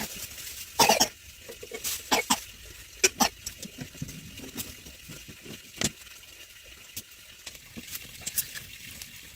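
Dry corn plants being handled: irregular sharp cracks and snaps with light rustling in between, a few strokes a second at the busiest, spaced out and uneven.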